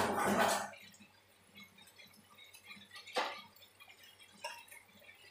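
Thick tomato chutney simmering in a kadhai over a gas flame, with occasional soft plops of bubbles bursting and one sharper pop about three seconds in. A brief louder rush of noise fills the first second.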